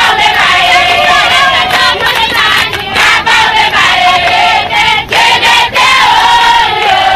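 A large crowd of supporters singing and chanting loudly, many voices together.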